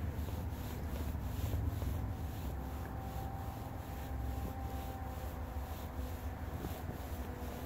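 Wind rumbling on the microphone, with the faint steady drone of a distant approaching diesel freight train.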